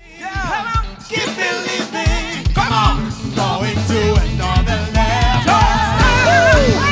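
Live gospel band with singers performing: a lead voice sings melismatic runs with vibrato over bass guitar and kick drum. The full band comes in about a second in.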